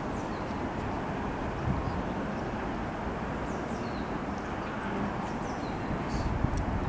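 Wind buffeting the microphone with a steady low rumble, and small birds calling in short, high, falling chirps scattered throughout.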